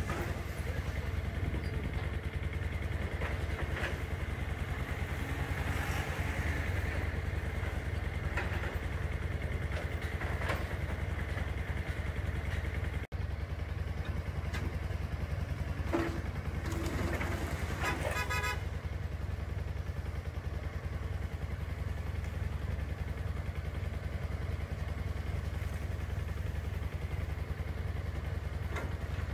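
Steady low engine rumble from heavy machinery and passing traffic, with a few scattered knocks and a short vehicle horn toot a little past halfway.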